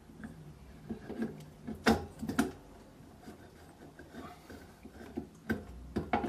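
Metal clinks and knocks, a few sharp ones among lighter scraping, as a lawnmower flywheel is worked down onto the crankshaft over a keyway and will not seat. The struggle is put down to the flywheel banging into the ignition coil.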